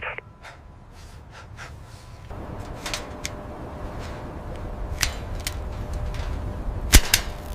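Low rumbling ambience that grows about two seconds in, with a faint steady hum and a few scattered sharp clicks, the loudest a quick double click near the end.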